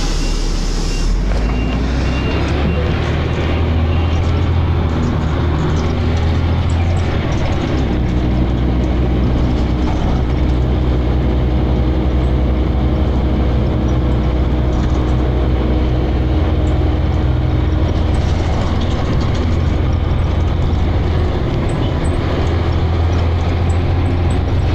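Dennis Arrow double-decker bus's engine and drivetrain running under way, heard from on board, with the engine pitch stepping up and down several times through the stretch. There is a short hiss right at the start.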